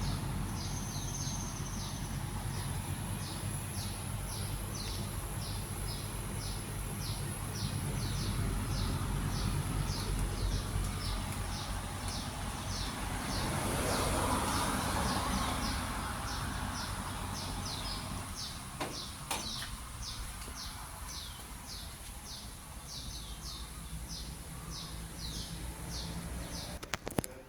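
Daikin air conditioner outdoor unit running with a steady low hum. Over it a bird calls again and again, a short falling chirp about every two-thirds of a second. A few clicks come near the end, as the hum drops away.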